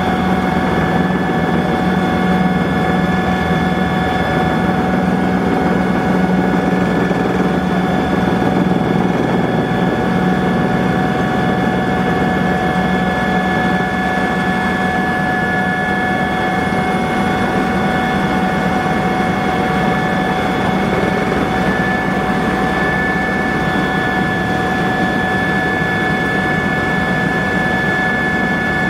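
Cabin noise of a Eurocopter EC120 Colibri helicopter in flight: its Turbomeca Arrius 2F turboshaft engine and rotors running steadily, with a constant whine of several high tones over a low drone.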